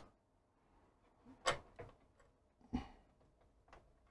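Faint, sharp clicks and knocks of a circuit board being worked free of its plastic retaining clips. There are about four clicks, the two louder ones about a second and a half and nearly three seconds in.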